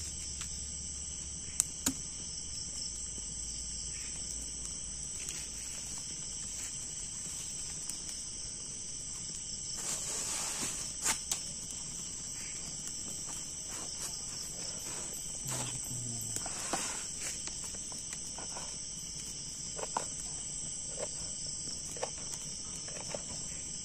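Steady high shrilling chorus of night insects, with a few small clicks and a short rustle about ten seconds in.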